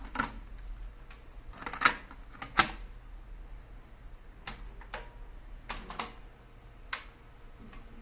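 Sharp mechanical clicks and clunks, about eight in all at irregular intervals, from a Gradiente C-404 cassette deck's keys and cassette door being worked, over a low steady hum.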